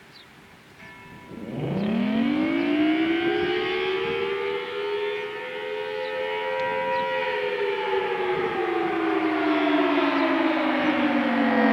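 Federal Signal Thunderbolt 1000T civil defense siren starting its Attack signal. About a second and a half in it winds up from a low pitch, rising steeply at first and then levelling off, with two close pitches sounding together. From about seven seconds in the pitch slowly falls again.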